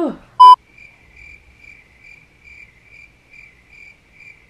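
A short, very loud beep tone about half a second in, then an evenly repeating cricket chirp, a little over two chirps a second. This is the stock "crickets" sound effect laid over a bored, silent moment.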